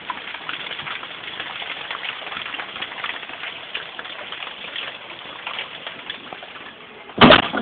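Hailstones pattering on the ground and hard surfaces: a dense, steady spray of tiny ticks. A brief loud burst of noise near the end.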